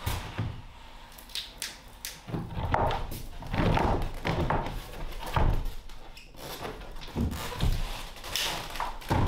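Shiplap pine floorboards being set down and shifted into place on the floor: a run of irregular hollow wooden knocks and thunks.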